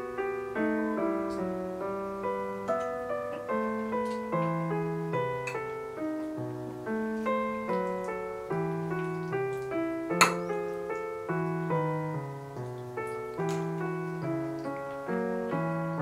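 Background piano music, soft notes played at an even, unhurried pace, with one sharp click about ten seconds in.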